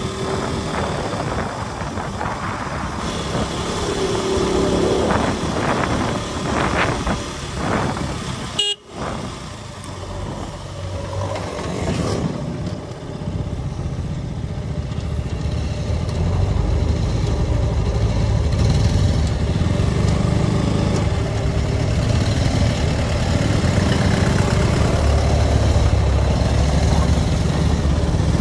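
KTM RC sport motorcycle engine running under way, with wind noise on a helmet-mounted microphone. Other vehicles honk their horns a few seconds in, with a brief dropout in the sound about a third of the way through. The engine rumble gets louder in the second half.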